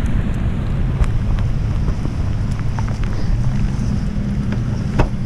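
Wind buffeting the camera microphone, with a low steady hum underneath and a sharp click near the end.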